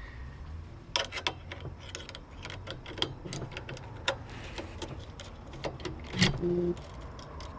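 Irregular light clicks and taps of small metal bicycle parts being handled as a BMX bike's brake cable is freed and pulled during disassembly.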